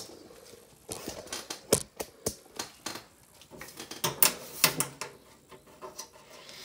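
Irregular clicks and light knocks of hands handling a desktop PC and its parts, a clatter of a dozen or so sharp taps with the loudest cluster a little past the middle.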